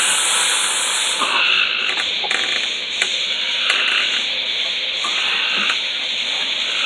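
Firework spraying sparks with a loud hiss that drops away about a second in, leaving a steadier, duller hiss with a few sharp crackles.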